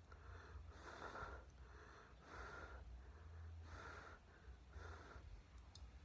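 Faint breathing through the nose at close range, a soft breath roughly once a second, while chewing a mouthful of food.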